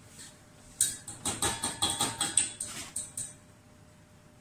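Fingers tapping a red plastic mesh sieve over a stainless steel bowl to sift almond flour: a quick run of light taps, about five a second, starting about a second in and lasting some two and a half seconds.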